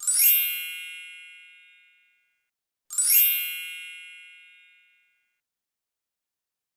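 Two bright, high chime dings about three seconds apart, each ringing out and fading over about two seconds.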